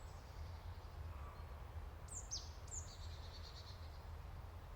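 Faint outdoor nature ambience with a songbird calling: about two seconds in, two high calls, each a quick downward sweep followed by a short rapid trill.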